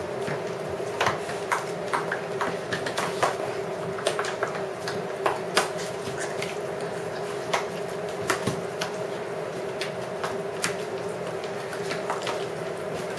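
Puppies playing on a hard tile floor: irregular sharp clicks and taps of claws and a plastic dish knocking on the tiles, some several a second, over a steady low hum.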